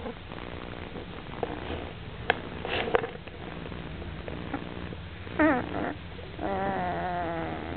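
Sleeping golden retriever puppies, about two and a half weeks old, breathing with a soft rhythmic purr-like snore. There are a few small clicks, then a short squeak falling steeply in pitch about five seconds in. Near the end comes a longer wavering whimper.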